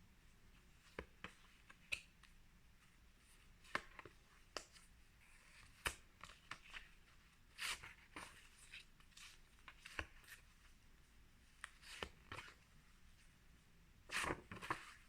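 Faint, irregular rustles and light clicks of paper phonics flashcards being handled and flipped over one at a time, with a longer rustle near the end.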